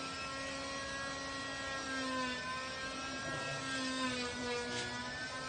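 A motor running at a steady speed, a humming tone with many overtones that wavers slightly in pitch.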